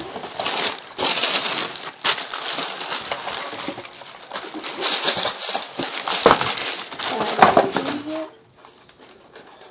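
Tissue paper inside a cardboard shoebox rustling and crinkling as it is handled and pulled back from a pair of sneakers, with a few knocks of the box. The rustling stops about eight seconds in.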